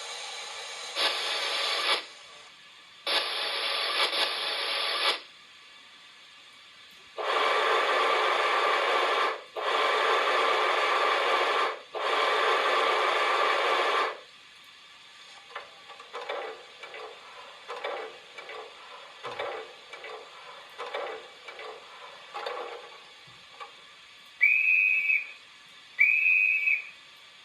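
Steam-locomotive sound effects played from a model class 94 tank engine's sound decoder through its small speaker: several long bursts of steam hiss, then a run of short, irregular scraping noises. Near the end come two short, high whistle toots.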